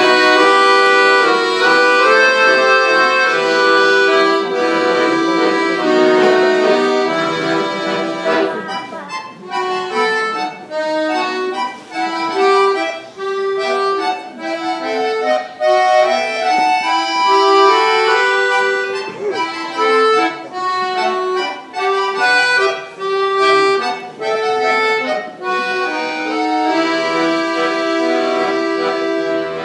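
Accordion ensemble playing together. It opens with held chords; about nine seconds in the music turns to short, detached notes, and it goes back to longer held chords near the end.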